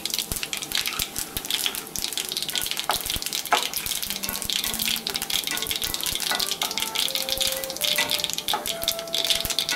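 Hot oil sizzling in a frying pan, with a steady crackle and many sharp pops as mustard seeds splutter. Fennel seeds, a piece of cinnamon and asafoetida have just been added for a tempering.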